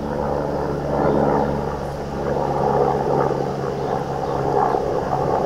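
A motor running steadily: a low, even drone whose pitch does not change.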